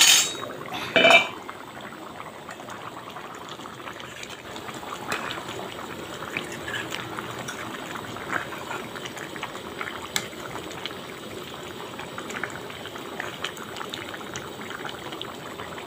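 Watery potato and ridge-gourd curry bubbling at a simmer in a kadai, a steady bubbling with small pops throughout. A steel ladle strikes the pan twice near the start.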